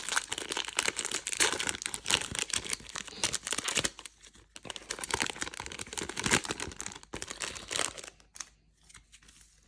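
Foil wrapper of a Magic: The Gathering collector booster pack crinkling and tearing as it is opened and handled, a dense crackle with a brief lull midway that dies down near the end.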